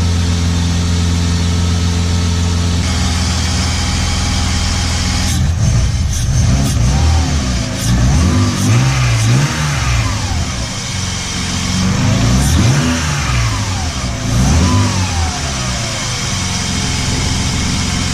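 BMW M52B28 inline-six engine idling, then revved up and back down several times before settling to idle again. It runs without the knock that had been heard, with the standard belt driving the power-steering pump as well.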